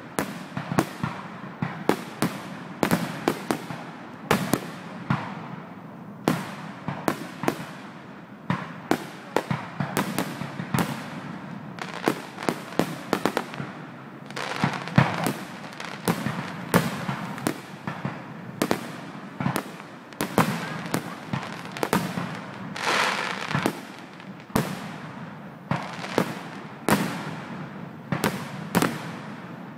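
Aerial fireworks shells bursting in quick succession during a fireworks display, about two or three sharp bangs a second, each trailing off briefly.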